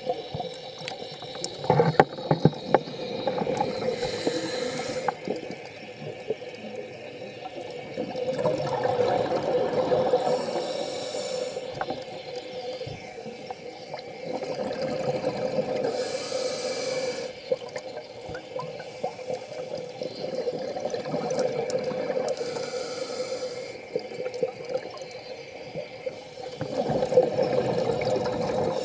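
Scuba diver breathing through a regulator underwater: a short hiss on each inhale, then a longer burst of gurgling exhaust bubbles on each exhale, about five slow breaths in turn.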